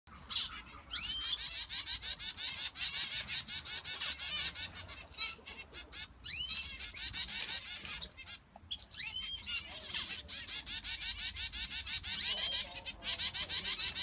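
A flock of small aviary finches chirping busily: a rapid, continuous run of high calls, several a second, broken by a few upward-swooping whistled notes and a couple of brief lulls.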